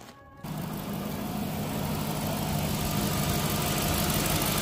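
Dodge Magnum's 5.7 L Hemi V8 idling steadily, coming in abruptly about half a second in, run to circulate flush water through the cooling system.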